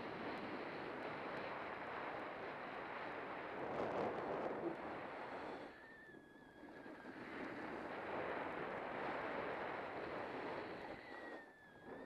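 Skis running over packed snow at speed, with wind buffeting the microphone: a steady rushing noise that swells and eases twice.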